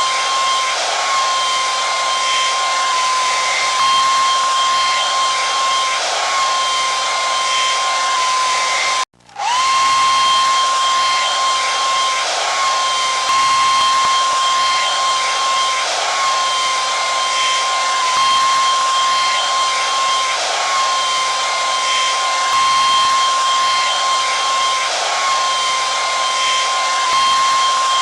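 Hair dryer running steadily: a blowing hiss with a high, constant whine. It cuts out for a moment about nine seconds in and comes straight back on.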